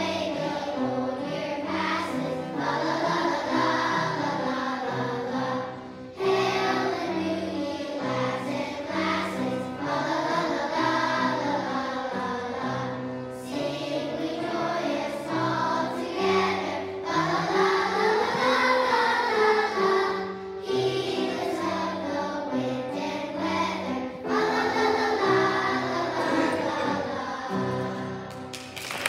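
Children's choir singing a Christmas song in unison with instrumental accompaniment, in phrases with brief breaths between them. The song comes to its end near the close.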